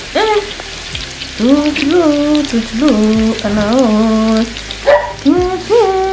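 Meat and onions frying in a metal pot, a steady sizzle with fine crackles, under a louder slow melody of long held and gliding notes.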